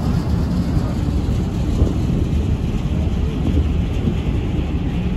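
Steady low rumble of ship engines with a constant hum, over a haze of wind and water noise, with a large cargo ship passing close alongside.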